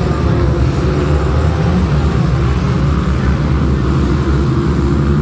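Many small youth race ATV engines running together at the start line, a dense, steady drone with no single engine standing out.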